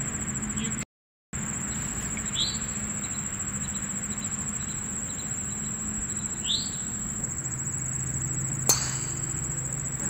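Insects droning steadily at a high pitch over a soft outdoor hiss, with two short rising bird chirps and a single sharp click near the end. The sound drops out briefly about a second in.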